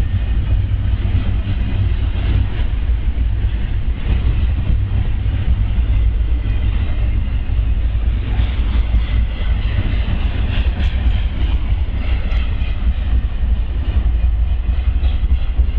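Double-stack intermodal freight train rolling past close by: a steady, loud low rumble of steel wheels on rail with a rattling hiss, and a few sharp clicks near the middle.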